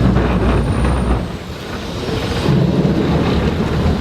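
Boat engine running with wind and water noise, dipping briefly in level about a second and a half in.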